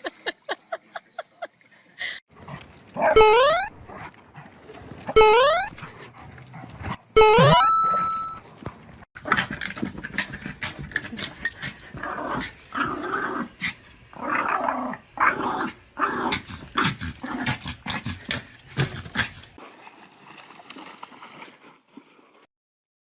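Dogs play-fighting: three loud, rising yelps about two seconds apart, then a long stretch of growling that dies away near the end.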